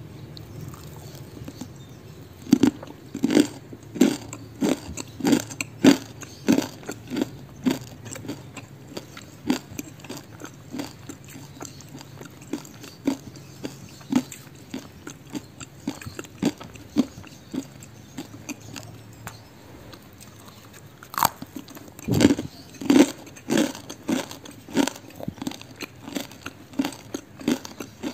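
Someone chewing a crispy fried cassava snack with flour coating, mouth close to the microphone: a steady run of crunches about one to two a second, louder again about three-quarters of the way through.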